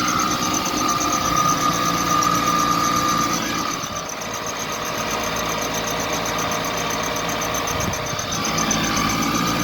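Car engine idling while its alternator drive belt squeals in one steady high tone. The squeal fades out after about three and a half seconds and comes back near the end. It is the rubber belt slipping on the metal pulley because there is too little friction between them.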